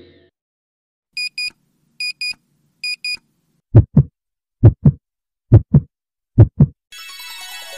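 Intro sound effects: three quick double electronic beeps, like an alarm clock, followed by four double low thumps like a heartbeat. About seven seconds in, a steady hissing, buzzing sound starts.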